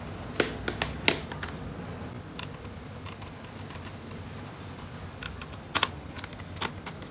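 Scattered light clicks and taps of a screwdriver and small screws as the four screws holding a laptop's hard drive are undone: a few in the first second and a half, then a cluster near the end.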